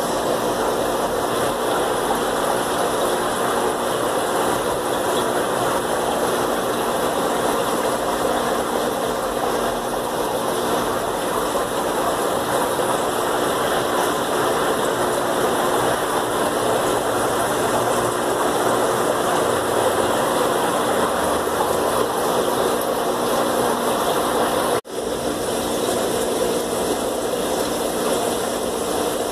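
Steady hum and hiss of aquarium fish-room equipment: air pumps running and aeration bubbling in the tanks. The sound is unchanging apart from a split-second dropout about 25 seconds in.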